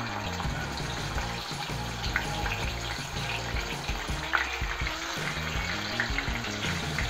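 Marinated black pomfret slices sizzling as they shallow-fry in hot oil in a pan. There are sharper crackles as another slice is laid into the oil about four seconds in.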